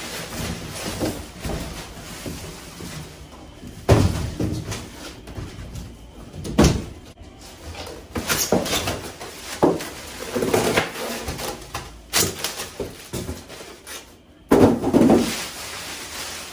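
Unboxing noise: a cardboard box knocked and thumped several times as it is lifted off, and a clear plastic bag crinkling as it is pulled off an upright air compressor.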